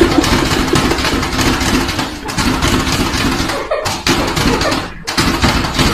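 A motor running loudly with a rough, rattling noise and a steady hum, broken by two brief cuts.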